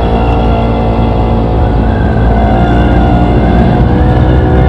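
Honda Beat scooter's single-cylinder engine running at a steady cruise through an MP7 'regulasi' hiung-style exhaust, with a thin high whine riding over the engine note from about two seconds in.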